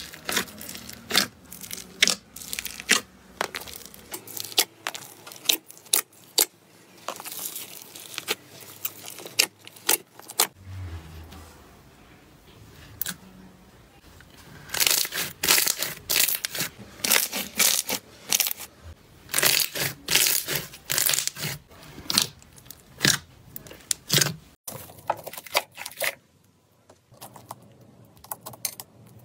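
Slime packed with foam beads being squeezed and pulled by hand: dense, irregular crackling and popping clicks in busy spells with quieter gaps, going quieter near the end.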